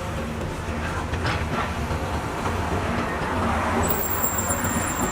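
Heavy diesel earthmoving machinery running with a steady low rumble, with a brief rattle about a second in. A thin high tone comes in near the end.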